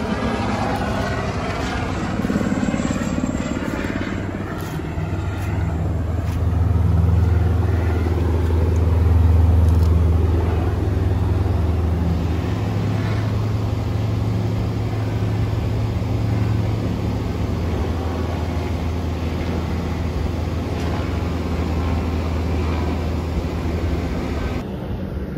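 Engine running with a steady low drone, swelling to its loudest about a third of the way in and then holding level until it cuts off just before the end.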